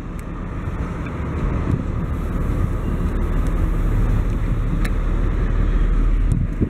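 Freight train of tank wagons rolling past: a steady low rumble of wheels on rails that grows louder, with a few light clicks.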